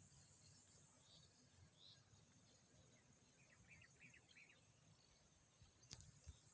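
Near silence: faint outdoor ambience with a steady high-pitched drone and a few faint bird chirps a little past the middle, then a single sharp click near the end.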